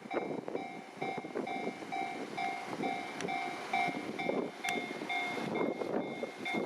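Japanese railway level crossing alarm ringing its electronic bell in a steady repeating rhythm, about two and a half rings a second, with the rumble of a train going through the crossing underneath.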